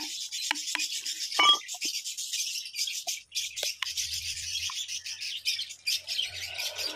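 Birds chirping, with short calls scattered throughout and a louder call about a second and a half in, over a steady high-pitched hiss.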